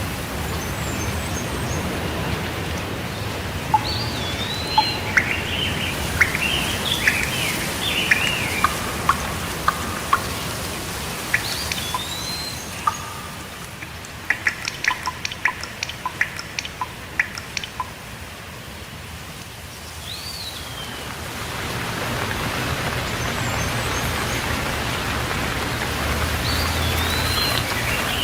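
Steady rain falling, with birds chirping and singing over it in short rising and falling calls. The rain thins in the middle while a quick run of short chirps sounds, then gets heavier again near the end.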